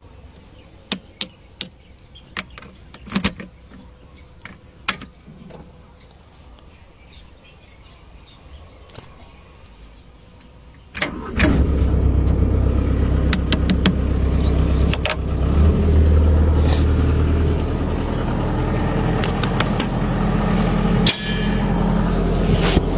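A few sharp clicks and knocks, then about eleven seconds in the small engine of a motorised hoe (mini tiller) starts abruptly and keeps running steadily.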